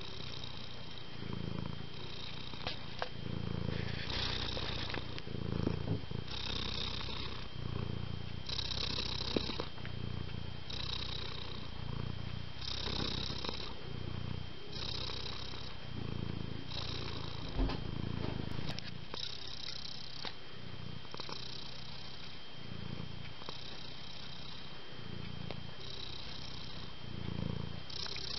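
A domestic cat purring close up, in a slow regular rhythm that rises and falls about once every two seconds with its breathing. A faint steady high-pitched tone runs underneath.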